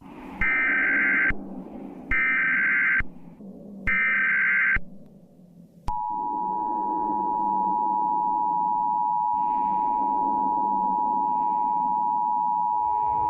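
Emergency Alert System broadcast alert: three short bursts of screeching SAME header data, each about a second long, followed about six seconds in by the steady two-tone EAS attention signal, which holds to the end, all over a low background noise.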